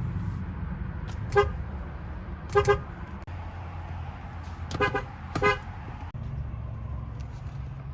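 A car horn tooted in short taps: one, then a quick double, another double and a last single, about six in all. A steady low hum runs underneath.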